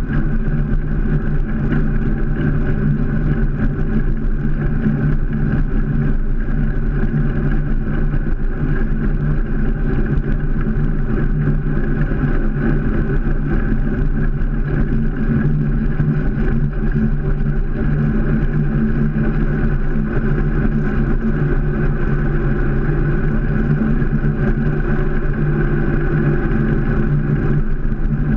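BMX bike rolling on asphalt, heard through a GoPro mounted low on the front fork: a steady, loud rumble and hum of tyre and road noise with housing vibration.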